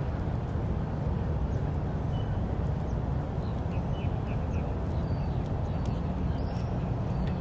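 Outdoor waterfront ambience: a steady low rumble with short, high bird chirps scattered through it.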